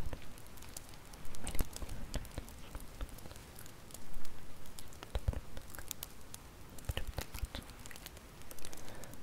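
Bonfire crackling: irregular snaps and pops over a faint hiss, with louder clusters of pops about a second and a half and five seconds in.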